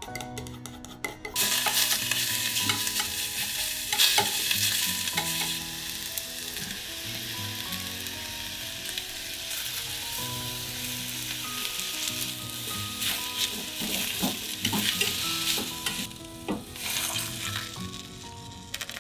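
Food sizzling as it fries in a hot pot and is stirred, starting about a second and a half in and easing off near the end. Soft background music plays underneath.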